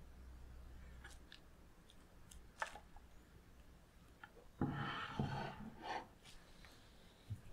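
Faint handling of a plate holding a plastic-wrap-lined steel ring mould of melted chocolate as it is tilted: a light click, then about a second and a half of rustling and scraping past the middle, with a few soft knocks.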